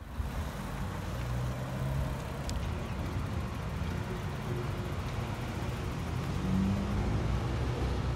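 Car driving on the road: a steady rumble of road and engine noise with a low hum under it.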